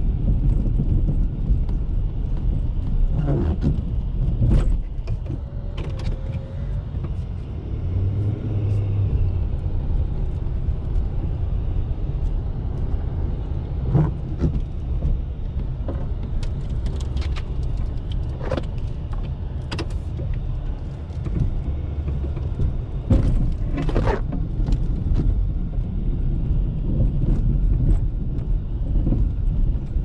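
Ford F-350's 6.7-litre Power Stroke turbodiesel V8 running as the truck drives through snow, a steady low rumble with scattered knocks and clunks.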